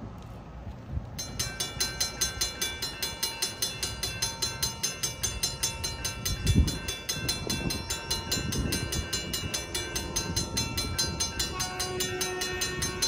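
Safetran mechanical crossing bell starting up about a second in and ringing steadily at about four strikes a second: the crossing warning has activated for an approaching train. A single low thump, louder than the bell, comes about halfway through.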